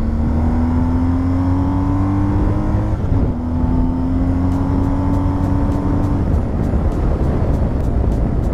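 BMW R1250GSA's boxer twin accelerating, its pitch rising, with a brief break about three seconds in where the quick shifter makes a clutchless upshift. It pulls and rises again, then eases off about six seconds in, over a steady low wind rumble.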